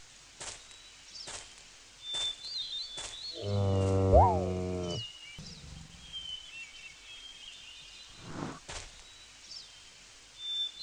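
A large animal's low, drawn-out call like a moo, lasting about a second and a half, about three and a half seconds in. Faint high chirps and a few short sharp sounds come before and after it.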